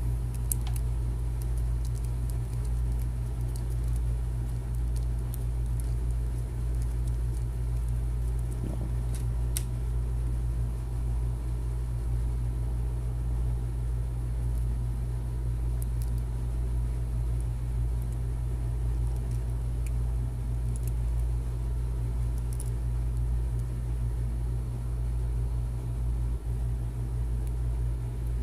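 A steady low hum, with a few faint light clicks of a small screwdriver driving a screw into a bracket.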